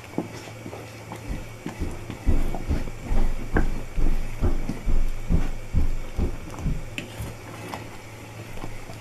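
Fudge mixture being stirred in a saucepan on the hob, the spoon knocking and scraping against the pan about twice a second, over a steady low hum.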